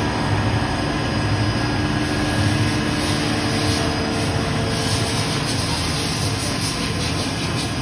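INDEX G200 CNC lathe running inside its enclosure: a steady machine hum, with coolant spraying against the guard window. The spray hiss grows stronger and flickers from about halfway through.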